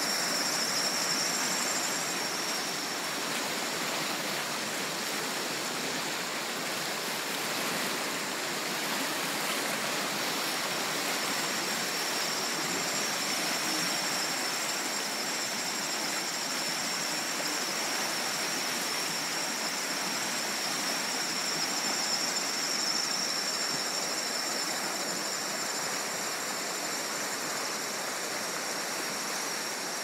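Fast-flowing flash floodwater rushing and churning, a steady rush with no letup, with a thin, steady high tone above it.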